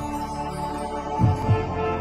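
Background intro music: soft held synth tones with a low double thump, like a heartbeat, a little past a second in.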